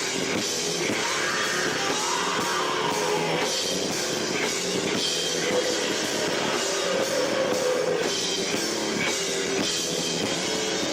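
Live rock band playing loud, with drum kit and distorted instruments, on a camera microphone overloaded by the room's echo so the sound is harsh and smeared.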